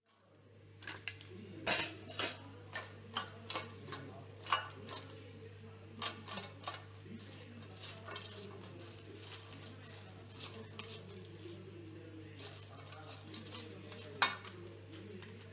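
Wire mesh strainer clinking and scraping against a steel plate as freshly fried potato chips are tipped out, then the crisp chips rattling on the plate as they are handled. The clicks come thick in the first few seconds and sparser after, with one sharp clink near the end, over a steady low hum.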